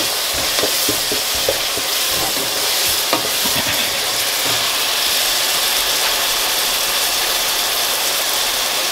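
Curry base of onion, tomato and spices sizzling steadily in a steel pot. A wooden spatula scrapes and knocks as it stirs the mixture through, mostly in the first few seconds.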